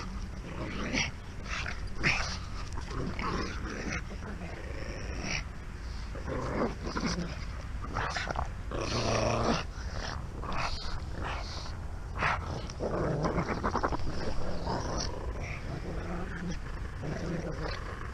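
Two pugs growling in play while tugging on a rope toy, in short irregular bursts, over a steady low rumble.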